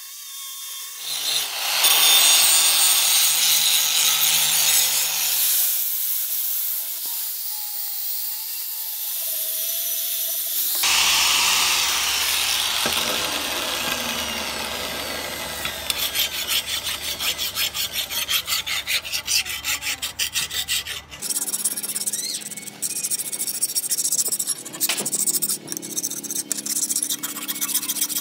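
Rusty steel cleaver blade being sanded and scoured: harsh abrasive scraping on the metal, then quick back-and-forth rubbing strokes in a steady rhythm through the second half.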